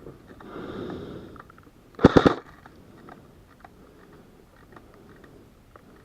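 A short burst of airsoft gunfire, about four rapid sharp shots, about two seconds in, after a softer rustling noise in the first second or so.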